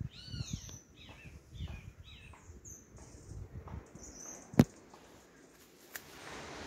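A forest bird calling a quick run of about five downslurred notes in the first two and a half seconds, over the low thumps and rustle of someone walking through undergrowth, with one sharp crack about four and a half seconds in.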